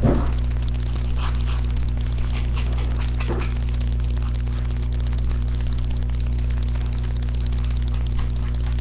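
Steady low electrical hum, with a few faint brief handling noises near the start and about three seconds in.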